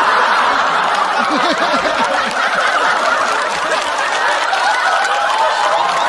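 A large studio audience laughing loudly together, many voices at once, in reaction to a stand-up comedy punchline.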